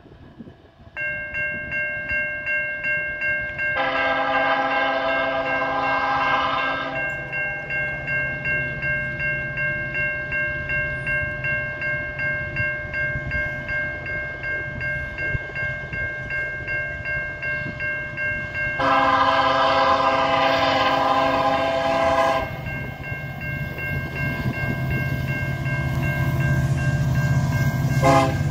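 CN SD70M-2 locomotive's out-of-tune Nathan K5LLA air horn, with its 3A bell dead, sounding two long blasts and then a short one near the end. A steady, pulsing ringing, like a crossing warning bell, runs beneath from about a second in. The locomotive's low rumble grows louder in the last few seconds as it approaches.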